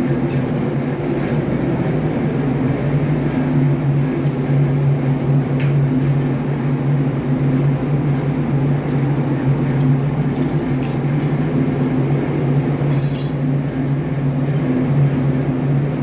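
Steady drone of running machinery in a ship's engine room, a constant low hum, with light metallic clinks now and then.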